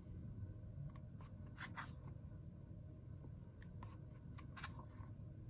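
Faint, scattered paper rustles and light ticks from a media book being handled, over a low room hum.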